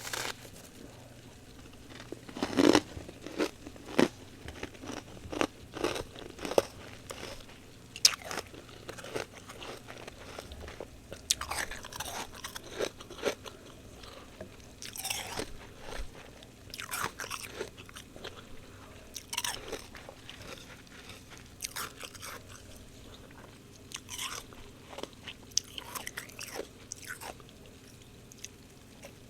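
Freezer frost being bitten and chewed close to the microphone: a run of irregular sharp crunches with short pauses between bites.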